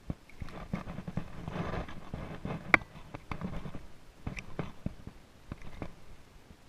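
Handling noise of fishing line being pulled in by hand: scattered small clicks, taps and rubbing, the sharpest click about three seconds in, over a low rumble.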